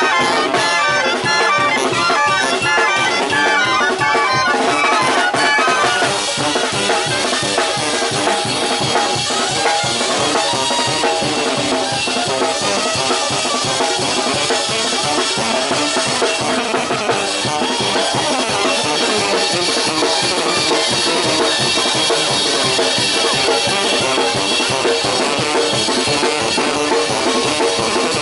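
Live Mexican brass band playing: clarinets on the melody over sousaphones, trombone and trumpet, with a steady drum beat. After about six seconds the sound turns denser and noisier, with the drums more to the fore.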